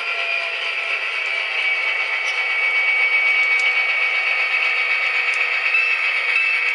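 Soundtraxx Tsunami2 (TSU2) EMD-series sound decoder in an HO-scale Atlas SD24 model, playing a diesel locomotive running under way through the model's small on-board speakers. The sound is thin and has no bass, with a steady whine on top, and gets a little louder about halfway through.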